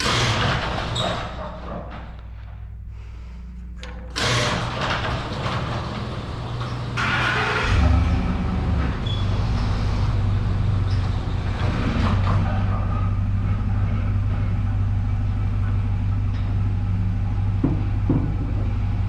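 Engine of the towing vehicle running under load as it pulls the tractor, its drone rising in steps about four and eight seconds in, then holding steady.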